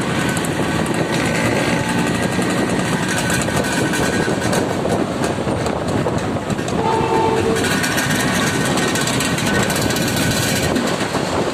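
A vehicle running loudly and steadily, with a brief horn-like tone about seven seconds in.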